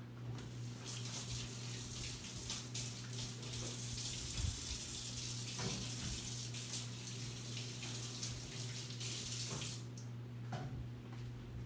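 Kitchen faucet running as hands are washed under it. The water starts about a second in and shuts off near the end, over a steady low hum.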